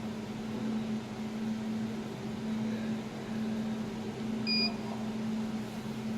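Jewelry laser welding machine running with a steady electrical hum, and one short electronic beep about four and a half seconds in.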